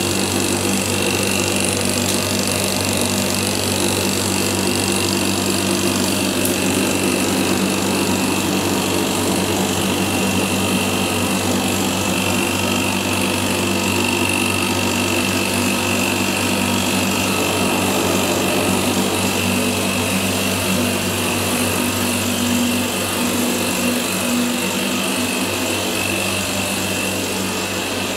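Damp-proof course injection pump running steadily, a constant hum with a thin high whine, pushing injection fluid through the tubes to probes set in the brickwork.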